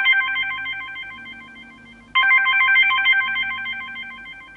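Smartphone alarm going off: a short melodic ringtone of high, clear notes that starts loud and fades away, then starts over about two seconds in, repeating about every three seconds.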